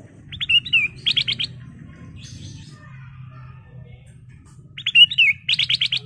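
Ruby-throated bulbul (kutilang emas) singing two short phrases, about four seconds apart. Each phrase opens with a few quick notes and a wavering whistle, then ends in a fast run of about five clipped notes. A faint low hum runs underneath.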